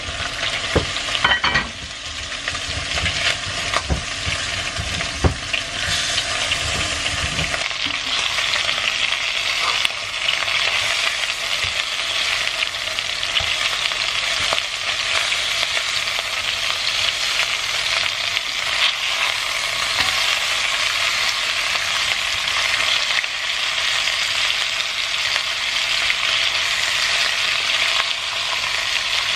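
Chicken pieces sizzling as they fry in oil in a pan, with a spatula stirring and turning them. A few knocks and clinks come in the first several seconds, and from about eight seconds in the sizzle is a steady, even hiss.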